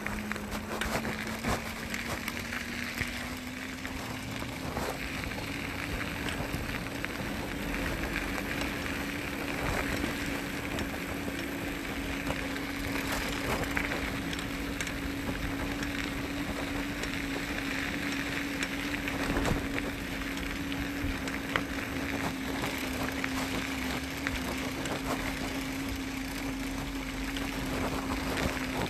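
Electric bike motor whining steadily under way, its pitch rising a little over the first few seconds and then holding, over wind and tyre noise with occasional knocks from bumps in the path.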